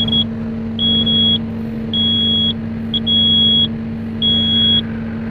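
Komatsu PW180 wheeled excavator's cab warning buzzer beeping about once a second, each beep a high steady tone of about half a second, over the machine's engine running steadily. It is the alarm for the low brake oil pressure error, still active.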